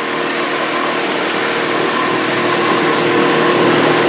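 Boat motor running steadily under way, with water and wind noise, its note holding even and getting a little louder near the end.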